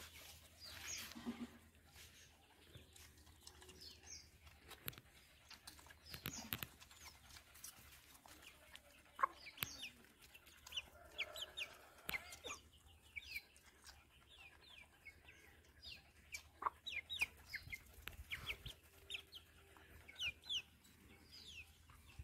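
Chickens clucking, with many short, high chirps that fall in pitch scattered throughout, and a few sharp clicks.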